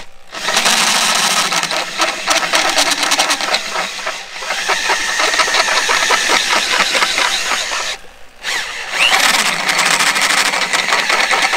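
Heavy corded drill boring a 1-inch hole through a Dana 60 steering knuckle: the motor runs under load while the large bit cuts with a rapid chatter. The drilling stops briefly about four seconds in and again, a little longer, about eight seconds in.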